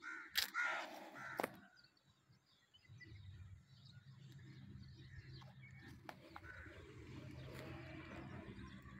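A crow cawing near the start, faint against the open air, followed by a faint steady low hum from about three seconds in.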